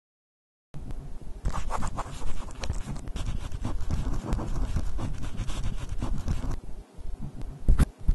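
Rough scratching and scraping noise, thick with small clicks, starting suddenly about a second in, with a few sharper clicks near the end.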